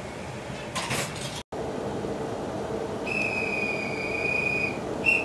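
Steady hum inside a standing Akita Shinkansen Komachi (E6 series) car. There is a brief noise about a second in, then a single high steady tone lasting about a second and a half, and a short high tone near the end.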